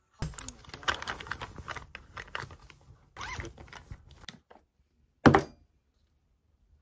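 Handling noise of objects being moved about: a run of clicks, rustles and scrapes for about four seconds, then one loud knock about five seconds in.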